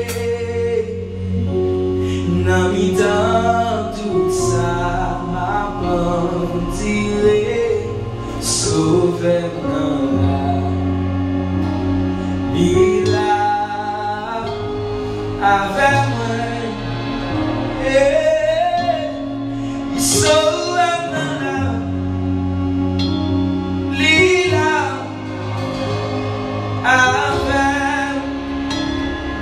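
Slow gospel worship music: a singing voice carrying a melody over held chords that change every few seconds.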